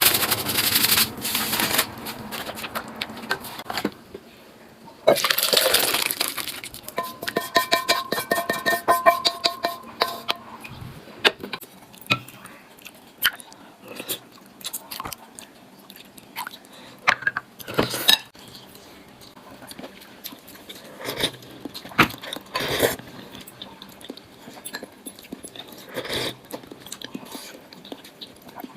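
Tableware clinking and tapping against bowls, many short irregular clicks and knocks.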